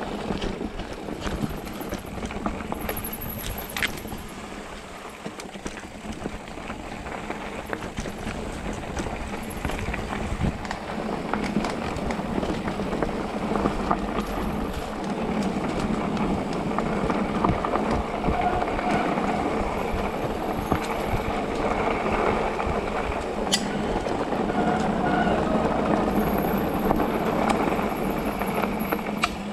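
Specialized Turbo Levo electric mountain bike riding a dirt forest trail: knobby tyres rolling over the ground, with frequent rattles and knocks from the bike. It grows louder from about a third of the way in.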